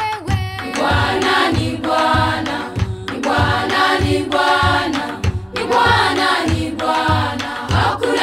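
Swahili gospel song: voices singing together over a steady drum beat.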